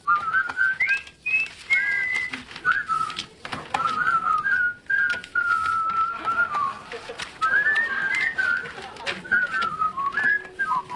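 A person whistling a wandering tune, over the crisp rustle and snap of sheets of paper and envelopes being handled.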